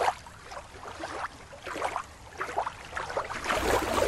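Water sloshing and splashing in small, irregular bursts. A low rumble comes in near the end.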